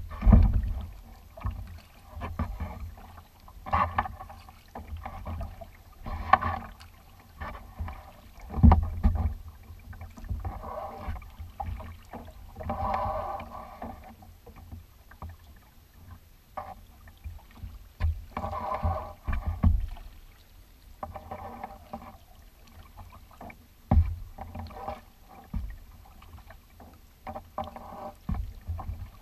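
Kayak paddle strokes in calm water: a splash and trickle of dripping water every two to three seconds, with water lapping at the plastic hull and a few low thumps.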